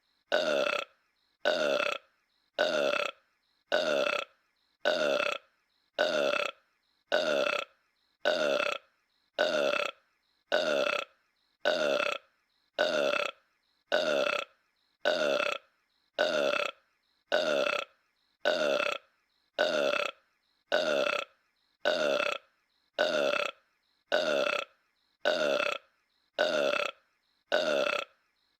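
One short cartoon burp, looped over and over at about one a second, each repeat identical and dropping slightly in pitch.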